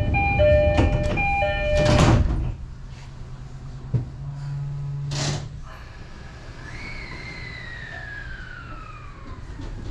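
Commuter train door-closing chime, a two-note chime repeated several times, with the doors sliding shut over it in the first two seconds or so. A click and a short burst of air hiss follow about four to five seconds in, then a faint falling whine.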